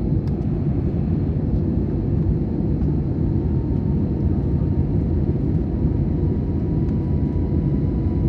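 Jet airliner cabin noise just after takeoff: a steady low rumble of engines and rushing air from a window seat over the wing, with a faint steady whine.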